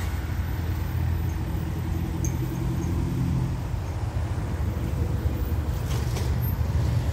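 Steady low engine rumble, with a faint pitched hum that fades about three and a half seconds in.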